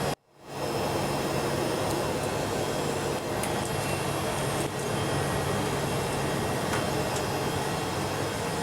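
Steady hum and hiss of the International Space Station's cabin ventilation fans and equipment inside a module, with a low hum running under it. It cuts out for a moment just after the start, then comes back.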